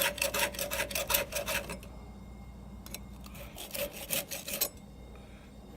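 Hand file rasping across the cutter teeth of a chainsaw chain in quick, even strokes, about four a second. The strokes stop just under two seconds in, and a few more follow around the four-second mark.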